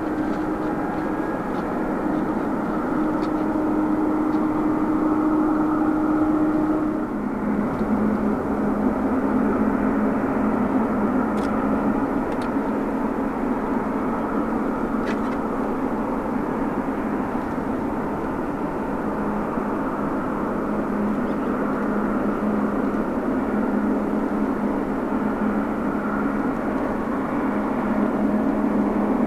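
Jet engines of the Japanese government's Boeing 747-400 running steadily: a continuous engine rush with a steady drone, which shifts lower in pitch about seven seconds in.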